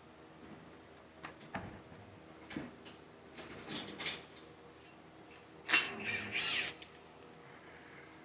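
Tools and small parts being handled during a chainsaw teardown: a few light clicks and knocks, then a sharp clack about five and a half seconds in, followed by about a second of scraping and rustling.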